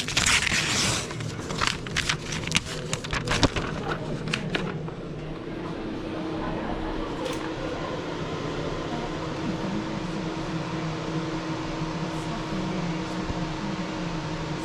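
A run of sharp clicks and knocks from handling work, then, from about five seconds in, a steady mechanical hum with a constant tone, like a fan or compressor running.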